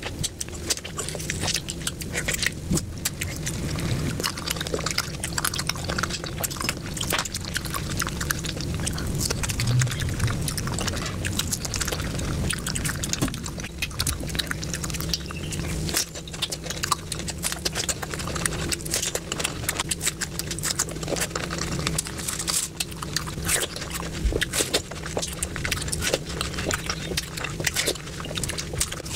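Close-miked eating of fresh fruit: orange and watermelon bitten and chewed in a dense run of short, sharp crunches and mouth clicks, over a steady low hum.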